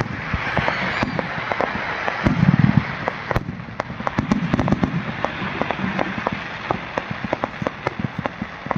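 Fireworks display: a dense crackle of many small sharp pops, with deeper booms from bursting shells about two and a half seconds in (the loudest) and again a couple of seconds later.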